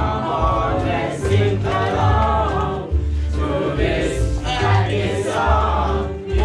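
A group of young voices singing a pop song together as a choir, over an accompaniment with a steady, repeating bass line.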